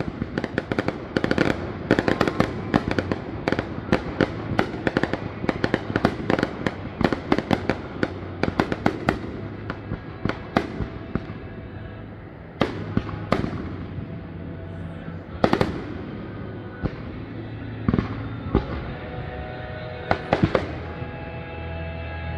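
Fireworks display over a lake: a rapid barrage of overlapping bangs and crackles for about the first ten seconds, then fewer, separate booms a second or two apart.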